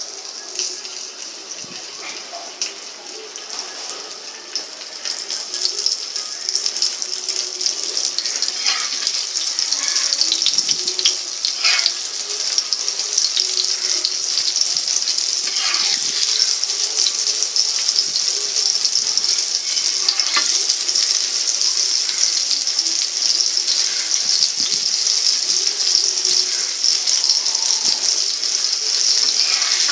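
Masala-stuffed, rice-flour-coated black pomfret (halwa) shallow-frying in hot oil on a tava. It gives a steady sizzle with scattered spitting crackles that grows louder over the first ten seconds or so, then holds.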